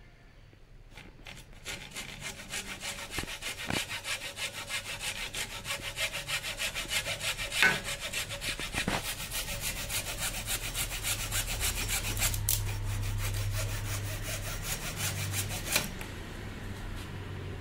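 Saw cutting teak wood with quick, even back-and-forth strokes, about three a second, with a few sharper knocks along the way.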